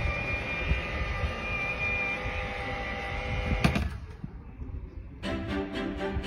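Klein Vision AirCar folding its wings: a steady mechanical hum with a high whine over a low rumble, ending in a sharp clunk about three and a half seconds in. After a short quieter stretch, music with a steady beat comes in near the end.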